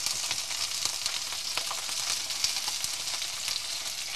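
Whole bream and vegetables sizzling in olive oil in a roasting tray heated on the hob: a steady frying hiss with scattered small crackles.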